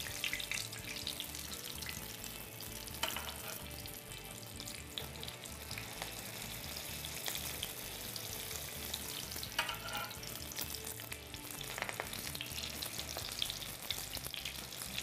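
Filled pastry triangles deep-frying in hot oil: steady sizzling and crackling, with a few brief clicks along the way.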